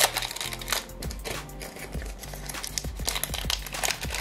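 Foil Pokémon booster pack wrapper crinkling and tearing as it is opened by hand, in quick crackly bursts, over background music with a steady repeating bass line.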